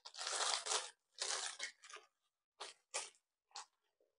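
E27 spotlight fitting being turned and handled in the hands: a string of short scraping rasps, the longest in the first second.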